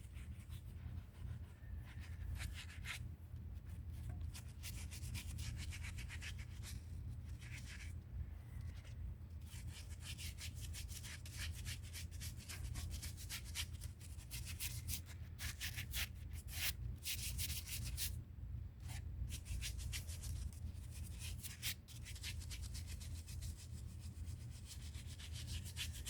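A brush scrubbing an old concrete bird bath in repeated short, uneven strokes, over a steady low hum.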